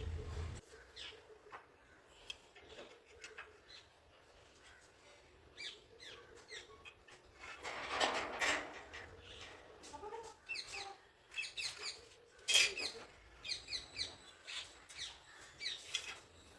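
Birds calling faintly: short chirps in quick clusters, with one louder, longer call about eight seconds in.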